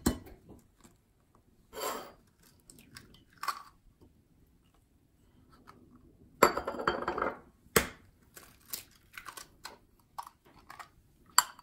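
Eggs being cracked on a glass mixing bowl, two in turn. Sharp taps on the rim, a crunch of shell breaking open about six seconds in, and small clinks in between.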